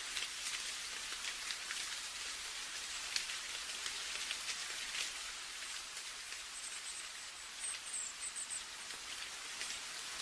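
Steady rain falling, an even hiss with the ticks of single drops landing close by.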